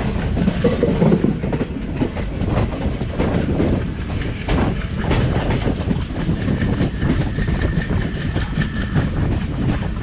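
Passenger train running at speed, heard from the open doorway of a coach: a steady rumble with the wheels clattering irregularly over the track.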